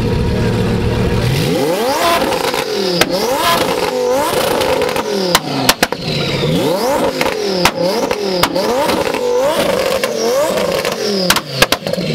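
Lamborghini Huracán's V10 idling, then revved in quick blips about once a second, the pitch shooting up and dropping back each time. Sharp exhaust cracks go off between several of the revs.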